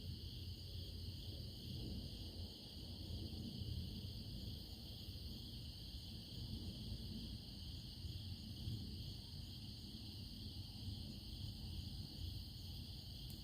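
Steady chorus of crickets, a high continuous trill, over a faint low rumble.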